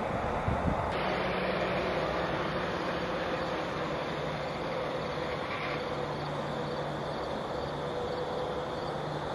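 Steady background rumble and hiss, with a faint low hum coming in about six seconds in.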